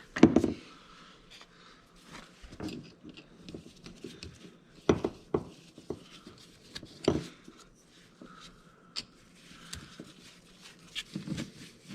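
Irregular knocks and clatter from hands working on the skid steer with tools and parts. The loudest knocks fall near the start and about five and seven seconds in.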